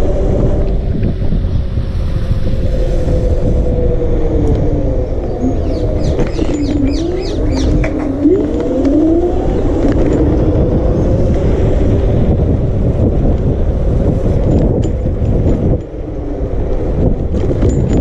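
Electric scooter hub motor whining while riding, its pitch rising and falling with speed, over a steady low rumble of wind and road noise.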